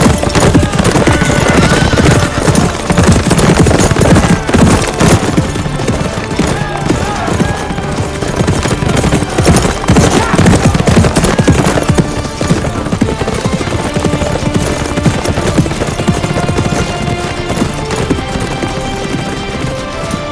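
Hoofbeats of several horses galloping, under dramatic film music; the hoofbeats thin out in the second half while the music carries on.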